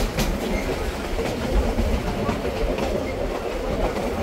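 Railway cars rolling on the track: a steady rumble of wheels on rail, with a few scattered clicks over the joints.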